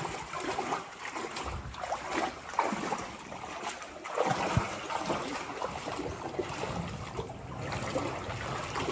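River water splashing and trickling around people floating in inner tubes, with a couple of short, hollow plunks about 2.5 and 4.5 seconds in.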